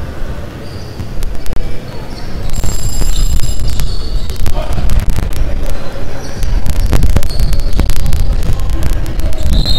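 Basketballs bouncing on a hardwood gym floor, with short sneaker squeaks and indistinct voices over a steady low rumble.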